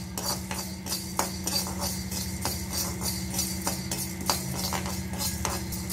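Metal spoon scraping and clicking against a dry kadai as coriander seeds are stirred and dry-roasted, the seeds rattling over the pan's surface in irregular strokes.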